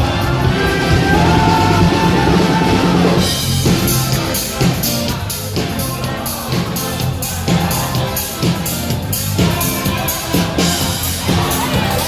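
Live rock band playing, with drum kit and bass driving a steady beat and a sung melody over it.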